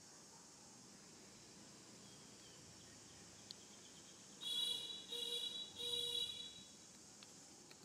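Steady high insect drone, with an animal calling three times in quick succession about halfway through, each call short and loud.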